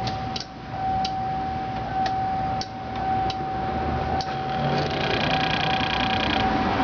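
Electrical clicking and a steady hum from a Century car that will not crank, with no starter engaging: irregular light ticks every half second or so, and a higher buzz for over a second near the end. The owner takes the noise for the idle speed control, with clicking also coming from the ABS relay.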